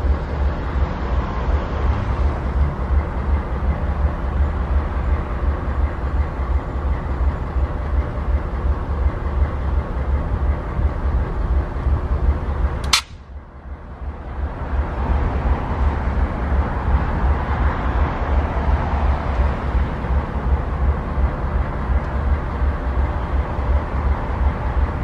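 Diesel-electric locomotive idling at a standstill: a steady, heavy low rumble. About halfway through a sharp click cuts in, the sound drops away, then it builds back over a couple of seconds.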